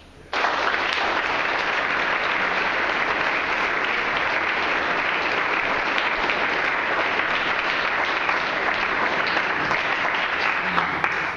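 Audience applauding: dense, steady clapping that starts at full strength just after the start and stops sharply near the end.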